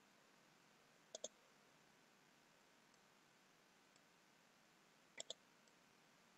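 Near silence broken by two quick double clicks of a computer mouse button, about a second in and again about five seconds in.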